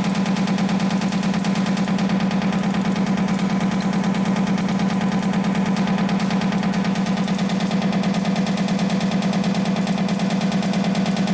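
YHM FMB-2 CNC wire bending machine running at production speed, forming 2.0 mm wire at about 550 pieces a minute. It makes a fast, even clatter of strokes over a steady low hum.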